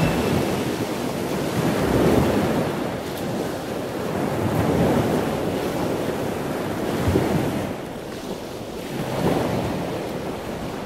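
Open-sea water rushing and splashing in surges every two or three seconds, with wind buffeting the microphone.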